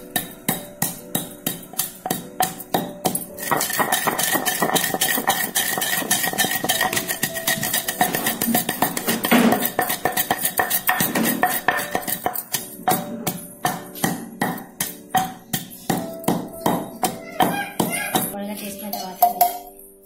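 Wooden pestle pounding roasted coriander seeds in a stone mortar, crushing them to a coarse powder: repeated strokes about two a second, coming faster for several seconds in the middle.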